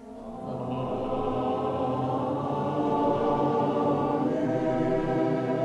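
A congregation of many voices singing together in slow, drawn-out notes. The singing swells up over the first second.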